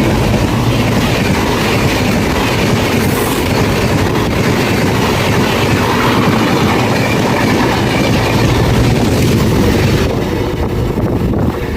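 Indian Railways express train passing close by at speed: loud, steady rush of the coaches with wheels clattering over the rail joints, easing a little about ten seconds in.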